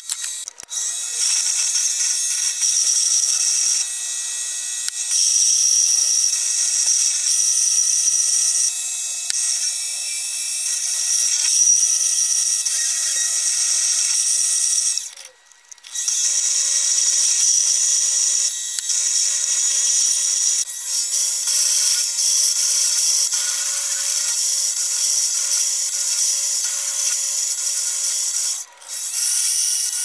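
Harbor Freight mini lathe running with a steady whine while a tool bit turns down a bolt; the owner takes the lathe to be on its last leg. The sound breaks off briefly about halfway and again near the end, and after the first break the whine comes back a little lower in pitch.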